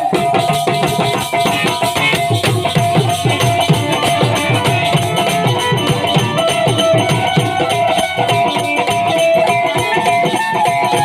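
Instrumental interlude of a Hindi bhajan: a sustained melody line over a steady, fast drum rhythm, with no singing.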